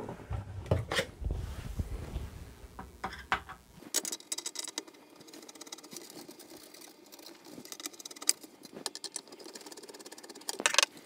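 Scattered clicks, taps and light plastic rattles from handling an opened Commodore 64C as its keyboard is worked loose from under its retaining tabs. There is a low rumble in the first few seconds and a quick run of clicks near the end.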